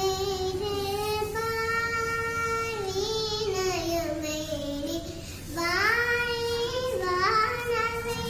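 A young girl singing solo, holding long notes whose pitch wavers and glides, with a short breath about five seconds in.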